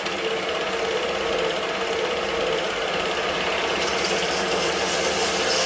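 A motor-driven machine running steadily: an even, dense noise with a steady hum under it.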